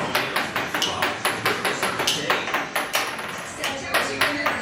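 Background music driven by a quick run of sharp percussive taps, several a second.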